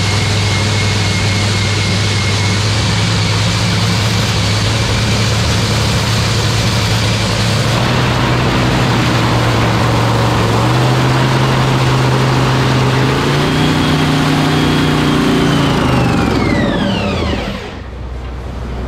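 Freshly rebuilt supercharged nitromethane Top Fuel dragster engine running its warm-up: a steady, loud idle, brought up in pitch in two steps about ten and thirteen seconds in, then shut off near the end, its note dropping away as it spins down.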